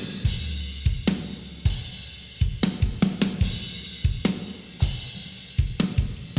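Drum kit (kick, snare, hi-hat and cymbals) playing a steady beat through a vintage MicMix Master Room XL-305 spring reverb, each hit trailing off in reverb.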